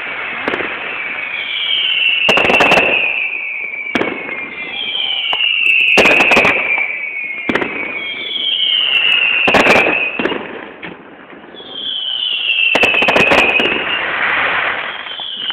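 Fireworks display: a repeated whistle that falls slightly in pitch, each lasting about a second and coming every two to three seconds, mixed with sharp bangs of bursting shells.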